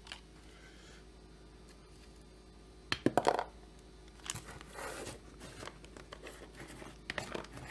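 Handling noises from working screws into a chainsaw crankcase: a short burst of clicking and rustling about three seconds in, then fainter scattered clicks and rustles.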